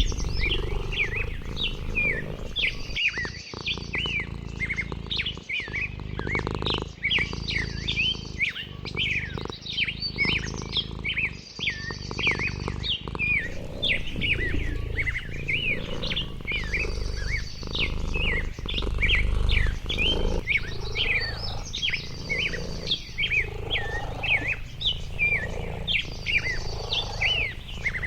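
Chorus of many birds chirping continuously, with a short high trill repeating every three to four seconds, over a low steady rumble.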